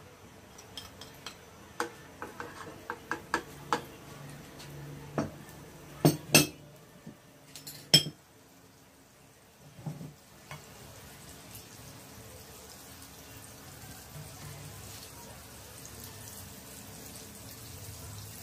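Slotted spatula scraping butter off a plate into a nonstick frying pan: a run of knocks and clinks against the plate and pan for the first eight seconds or so, the loudest a few sharp knocks near the end of it. After that, a faint steady sizzle of butter melting in the pan.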